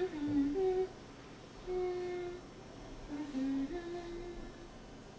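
A woman humming a slow tune to herself: short phrases of held notes stepping up and down, with pauses between them.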